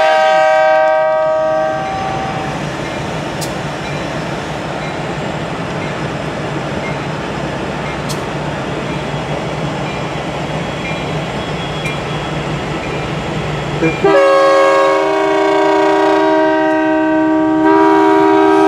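Freight locomotive air horn sounding a chord of several notes for about two seconds, then the steady rumble of the passing train. About fourteen seconds in the horn blows again, louder, and holds, its chord changing near the end.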